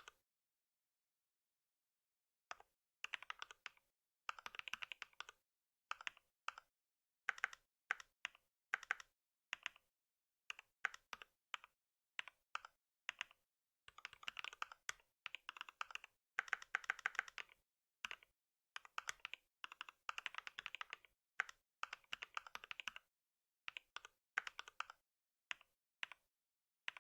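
Typing on a computer keyboard: irregular runs of keystrokes broken by short pauses, starting about two and a half seconds in.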